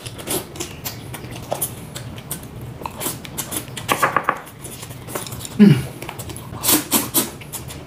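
A man eating noodles with chopsticks: wet chewing and lip-smacking clicks throughout, a couple of short hums of enjoyment, and noisy slurps of a mouthful of noodles near the end.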